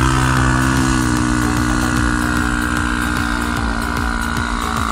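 Quad bike (ATV) engine running hard at fairly steady high revs under load as it climbs a steep sand slope, the pitch sagging slightly and then recovering.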